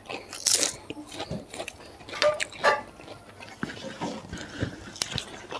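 Close-up eating sounds: wet chewing and mouth sounds, with crisp papad pieces crackling as they are broken and mixed into rice by hand. Irregular sharp crackles and clicks, loudest about half a second in and again around two and a half seconds in.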